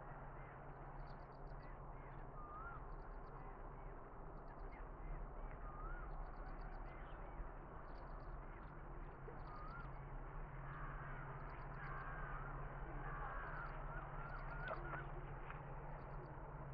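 Crows cawing, with a denser run of calls after about ten seconds, among other birds chirping, over the faint steady low hum of a diesel locomotive approaching in the distance.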